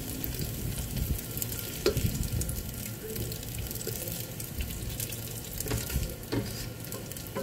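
Tofu cubes frying and sizzling in the nonstick pot of a Hanabishi multi-cooker, lightly browned, while a spatula scrapes and scoops through them. A few sharper clicks of the spatula against the pot come about two seconds in and around six seconds.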